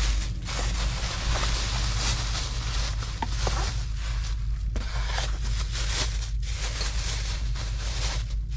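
Thin plastic grocery bags rustling and crinkling in irregular spurts as they are handled and a package is pulled out, over a steady low hum.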